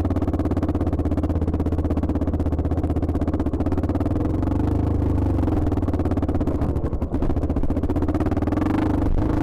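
Dirt bike engine running steadily under load, heard close up from the bike it is mounted on, with a rapid run of firing pulses. It eases off briefly about seven seconds in.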